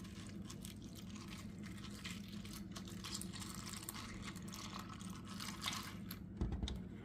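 Milk being poured into a bowl of cereal and freeze-dried strawberry slices, a faint splashing pour that stops about six seconds in. A low thump follows.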